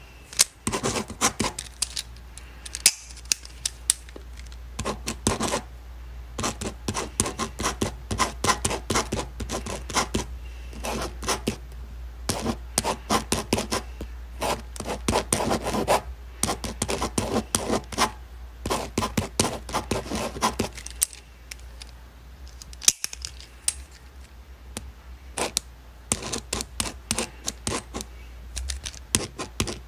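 Ballpoint pen writing on paper: quick scratching strokes and ticks in irregular bursts, with short pauses between.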